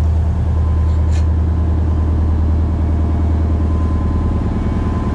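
A fishing boat's engine running steadily with a deep, even hum. There is a brief tick about a second in.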